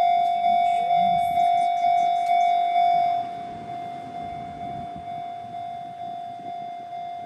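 Japanese railway level-crossing warning bell dinging at one steady pitch, about twice a second. About three seconds in it turns noticeably quieter, as the barriers finish rising, and keeps dinging.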